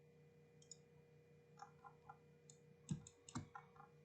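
Faint scattered clicks of a computer mouse and keyboard, with two slightly louder clicks about three seconds in, over a low steady electrical hum.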